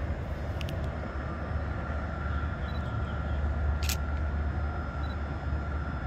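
Steady low rumble of distant road traffic from a nearby highway, with a single short sharp click about four seconds in.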